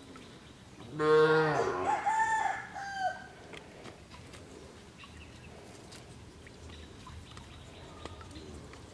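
A rooster crowing once, about a second in, the crow lasting about two seconds.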